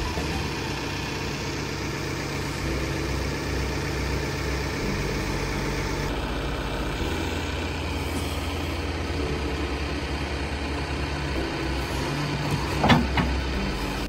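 Caterpillar backhoe loader's diesel engine running steadily while the backhoe arm digs into dirt, with one sharp knock near the end.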